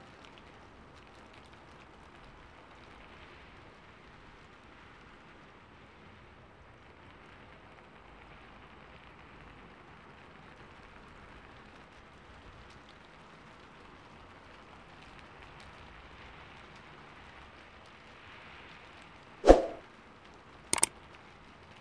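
Faint steady hiss, then two sharp clicks about a second apart near the end, the first the louder: the mouse-click sound effect of a subscribe-button animation.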